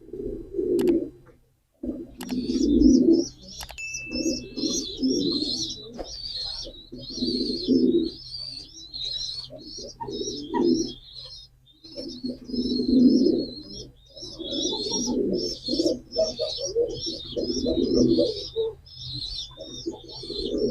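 Pigeons cooing in repeated low bursts, over a steady stream of quick high-pitched chirps.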